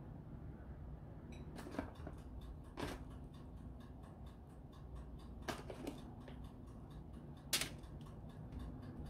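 Faint, quick, even ticking, about four ticks a second, that starts about a second in. A few louder short sounds stand out among the ticks.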